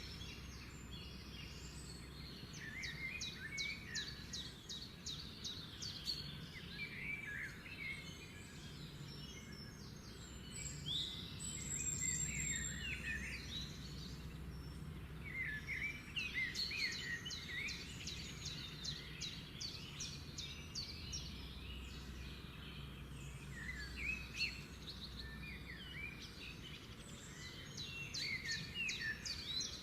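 Small birds chirping and twittering, with many short chirps and quick trilled runs that come in clusters, over a steady low background rumble.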